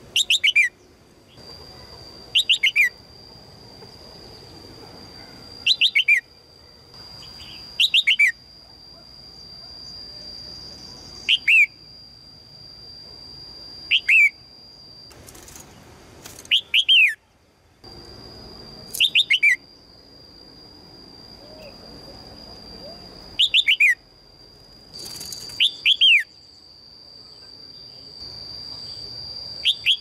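A red-whiskered bulbul gives sharp, falling chirps in quick groups of two or three, repeated every few seconds. This is the chattering call that the title puts down to a female calling a male.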